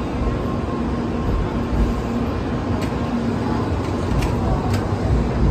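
Steady low rumble of railway station platform noise with a faint constant hum, and a few light clicks in the second half.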